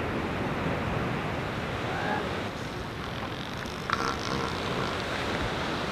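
Ocean surf washing onto a beach, with wind buffeting the microphone. A single short knock about four seconds in.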